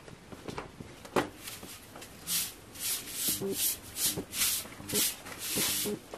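Grain swishing against a woven bamboo winnowing basket in a rhythmic run of strokes, about two a second, starting about two seconds in. A single sharp knock comes shortly before.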